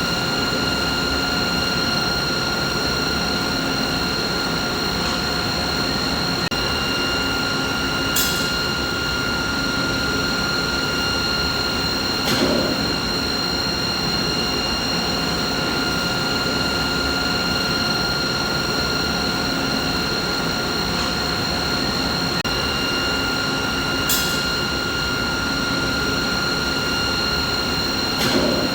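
Steady machinery hum with several high, steady whining tones over it. Four brief sharp clicks break it, two with a short low swell, in a pattern that repeats about every sixteen seconds.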